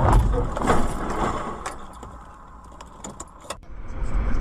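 A few knocks and rattles dying away in the first couple of seconds just after a car collision, heard from inside the car. About three and a half seconds in, a sudden cut gives way to the steady low rumble of a car driving on a highway.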